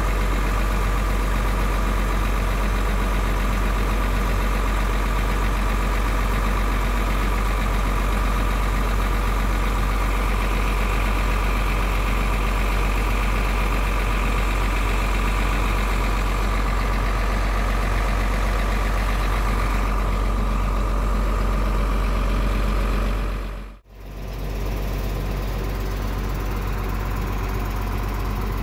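Mercedes-Benz OH1521 bus engine idling with a loud, fierce roar and a steady high whine over it, the intercooler sound the owner admires. About 24 seconds in it cuts out for a moment, then goes on slightly quieter.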